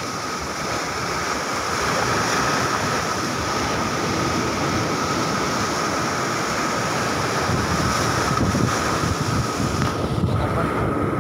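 Sea surf washing against a rock breakwater, with wind buffeting the microphone: a steady rushing noise.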